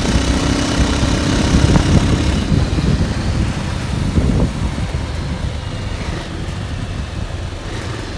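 Motorcycle engine running steadily while riding, with a constant low rumble of engine and road noise.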